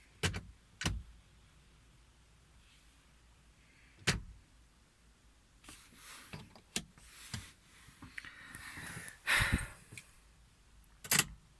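Scattered clicks and knocks with a short rustling swell a little before the end, the sounds of a car's door and controls being handled. No starter motor or engine is heard.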